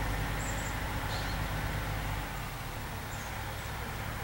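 Motor vehicle engine idling with a steady low rumble that eases slightly about two seconds in, with a few faint high chirps over it.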